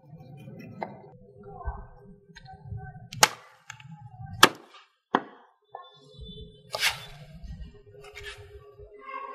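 Cleaver chopping through roast pork and rib bones on a wooden chopping board: several sharp chops at uneven intervals, the loudest in the middle, with knocking and handling of the meat in between.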